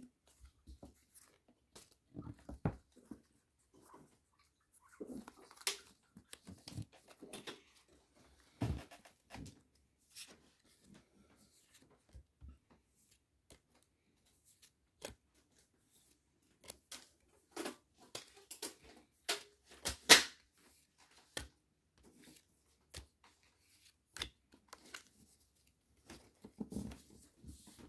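A Pokémon booster pack's foil wrapper handled and torn open, and trading cards slid and flipped one at a time: scattered soft rustles and light clicks with pauses between, and a louder crackle about twenty seconds in.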